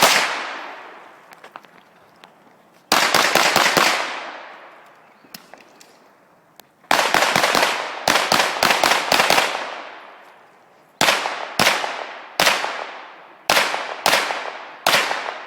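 Pistol fire at an action pistol match: fast strings of shots, then from about 11 s a run of separate shots roughly half a second apart, each ringing out with a short echo.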